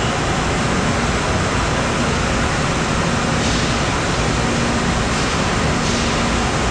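Steady machine-shop din: automated CNC lathes and other shop machinery running continuously, an even wash of noise with a low steady hum.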